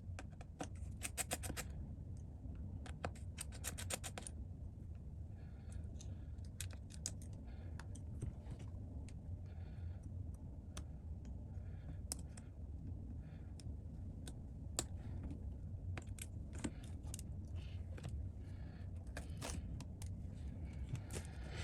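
Small hand tools clicking, tapping and scraping on an iPad's frame and parts during bench repair work. The clicks come at an irregular pace with a few quick rattling runs, over a steady low hum.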